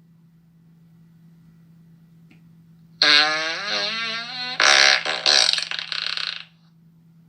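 Fart sound effect: one long fart starting about three seconds in, pitched and wavering at first, then breaking into a rougher sputtering stretch before it stops.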